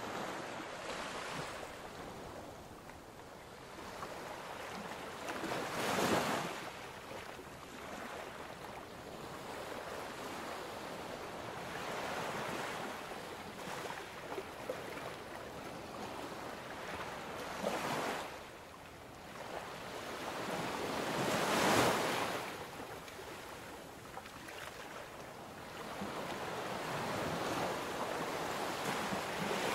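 Ocean surf washing in and drawing back in slow swells, with a few louder waves standing out.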